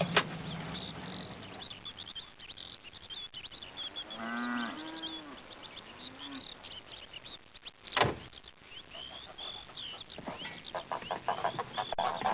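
Farmyard sound effects: small birds chirping throughout, and a cow mooing about four seconds in, followed by a shorter low call. A sharp knock comes about eight seconds in, and quick clicking near the end.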